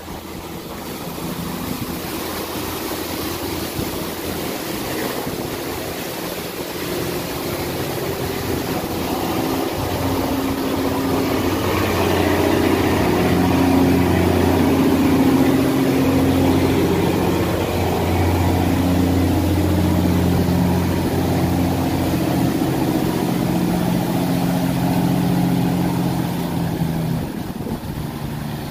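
Engine of a small cargo barge running at speed as it passes, a steady low drone that grows louder to a peak about halfway through and eases off near the end.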